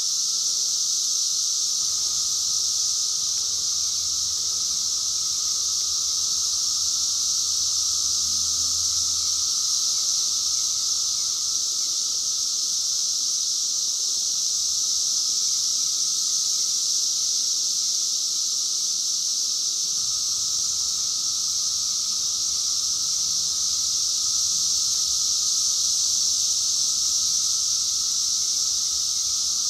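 Chorus of 17-year periodical cicadas: a steady, unbroken high drone with a fainter, lower tone held underneath.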